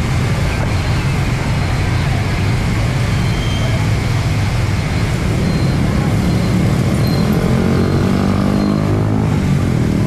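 Busy street traffic, mostly motor scooters and motorbikes with some cars running past in a steady low drone, with people talking. A nearer engine passes from about seven seconds in and fades just before the end.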